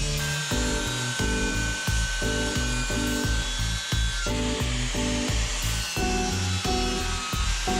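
Background music with a steady beat and changing chords.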